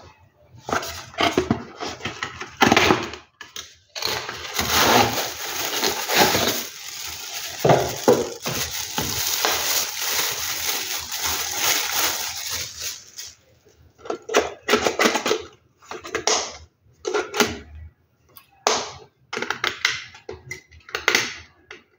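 Unboxing handling sounds. First a few knocks and rubs of a cardboard box. From about four seconds in, a clear plastic bag crinkles steadily for about nine seconds as a plastic toy is pulled out of it. After that come scattered short clicks and scrapes of a small screwdriver working at the toy's plastic battery cover.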